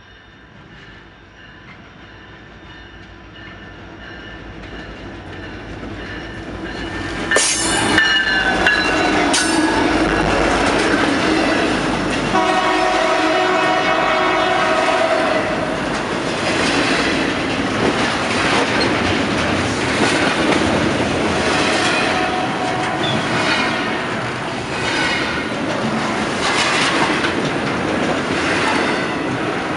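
Diesel freight train approaching and passing close by, growing louder for about seven seconds until the locomotives go past with a couple of sharp bangs. The horn sounds for a few seconds after that. Then double-stack container cars roll by with a rhythmic clickety-clack of wheels over the rail joints.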